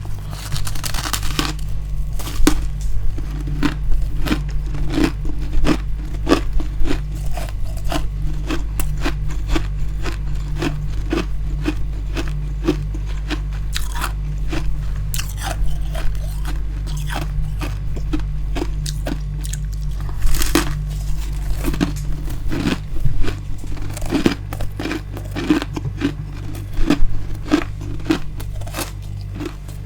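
Close-miked chewing of a mouthful of soft freezer frost: a steady stream of quick, crisp crunches. A constant low hum runs underneath.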